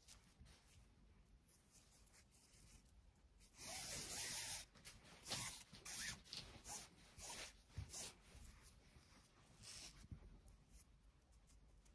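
Faint swishes and rubs of nylon paracord being pulled through the fingers and dragged over a towel, with a longer hissing rub about four seconds in and several short brushes after it.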